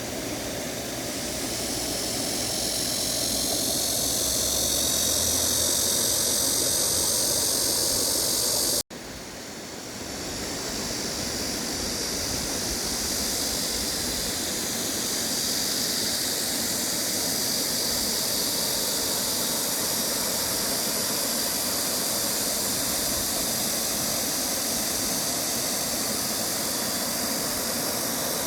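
Mountain stream water rushing over rocks: a steady hiss of flowing water, which breaks off for an instant about nine seconds in and then resumes.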